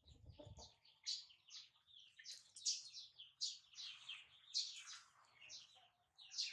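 Small birds chirping: a faint, rapid run of short, high chirps.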